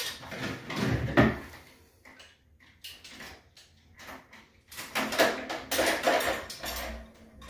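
Steel trap chain and a heavy crunch-proof swivel clinking and rattling as they are handled and crimped shut with fencing pliers. The clinks come in two spells, one at the start and one from about five seconds in, with a quieter stretch between.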